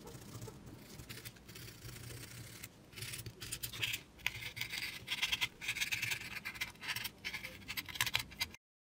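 Hobby knife blade cutting through kraft foam board in short, irregular scratchy strokes, louder from about three seconds in and cutting off suddenly near the end.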